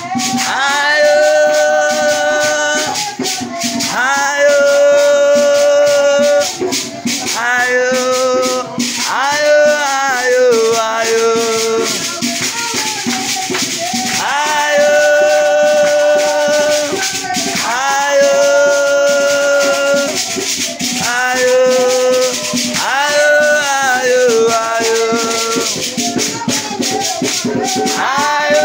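Church praise team singing a praise song in long held phrases about two seconds apiece, over a steady, rapid shaker rhythm.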